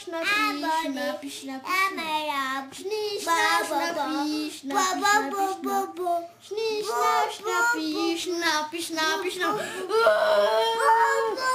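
Young child singing unaccompanied in a high voice, a run of sung phrases with short breaks between them.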